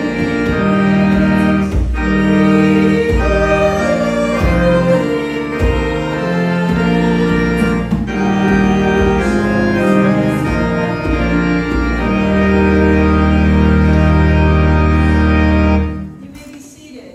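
Organ playing a slow hymn in sustained chords over a moving bass, ending on a long held final chord that is released about 16 seconds in.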